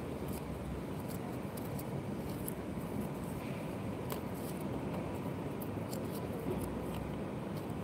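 Steady low background rumble of room noise, with faint scattered ticks.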